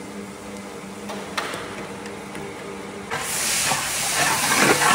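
Chopped onions, dried red chillies, curry leaves and tomato sauce frying in coconut oil in a large cooking pan, sizzling faintly over a steady low hum. About three seconds in, the sizzle turns suddenly loud and hissing as the mixture is stirred with a long ladle.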